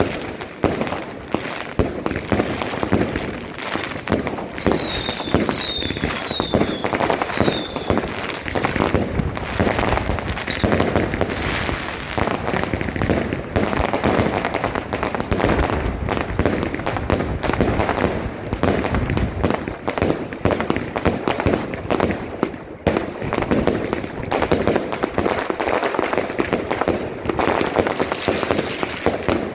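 Fireworks and firecrackers going off densely and without pause, many bangs and crackles overlapping. About five seconds in, a handful of short whistles fall in pitch.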